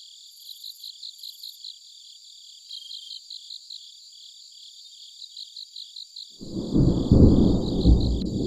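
Crickets chirping in an even rhythm, several chirps a second. About six seconds in, a low rumble of thunder rises and rolls on, swelling and easing.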